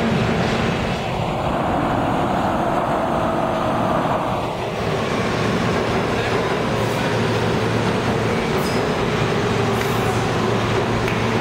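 New York City subway train running along a station platform: a steady rumble of wheels on rail, with a held whine for the first few seconds and a few sharp clicks in the last few seconds.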